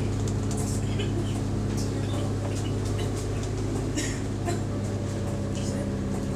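Bus diesel engine running steadily, heard from inside the passenger saloon, with scattered light clicks and rattles from the bus.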